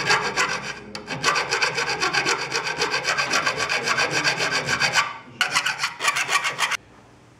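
Hand file scraping in repeated strokes along the edge of a 5 mm aluminium plate. It pauses briefly about five seconds in, starts again for another second or so, then stops shortly before the end.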